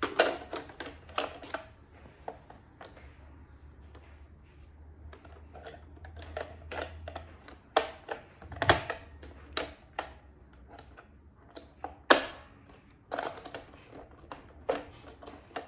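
Irregular clicks and knocks of hard plastic parts of a Roborock S8 robot vacuum being handled and worked on by hand, with a sharp knock about twelve seconds in as the loudest.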